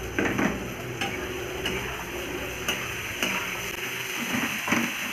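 Chopped onions sizzling in hot oil in a small karahi, stirred with a spatula that scrapes and clicks against the pan every second or so.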